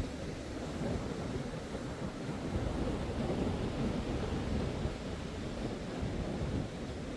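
Atlantic surf washing onto a sandy beach, a steady rumble of waves, with wind buffeting the phone's microphone.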